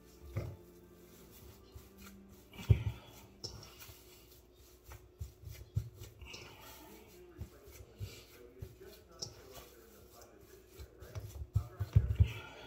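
Scattered knocks, clicks and rustles of food and kitchen utensils being handled, over a faint steady hum. The loudest thumps come about three seconds in and again near the end.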